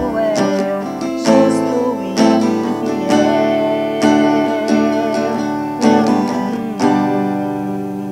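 Acoustic guitar strumming chords about once a second, accompanying a woman singing a gospel song with a long held note midway. The last strummed chord rings out and fades near the end.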